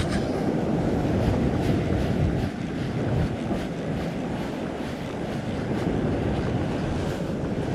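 Wind buffeting the microphone over ocean swell washing against a rock ledge, a steady rushing rumble.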